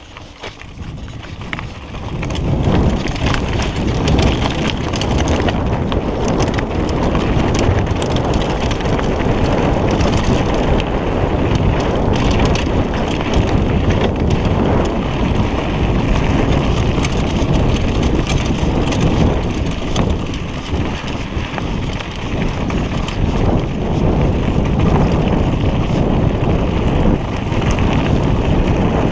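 Mountain bike running fast down a rocky trail: tyres crunching and rattling over loose stones, with heavy wind noise on the rider-mounted camera's microphone. It builds up over the first two seconds as speed picks up, then stays loud.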